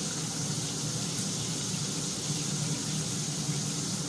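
Water spraying steadily from a newly fitted shower head, an even hiss of running water.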